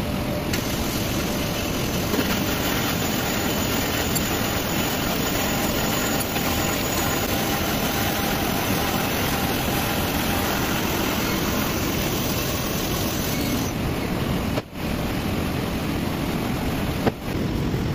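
Metal-cutting sawing machine running steadily as its blade cuts through a clamped steel tube under flowing coolant: an even mechanical drone with two brief dips near the end.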